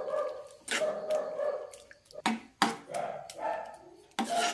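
Metal ladle stirring a watery semolina-and-lentil mixture in a steel pan, knocking and scraping against the pan several times as lumps are broken up. A steady whine-like tone sounds in the first second or so.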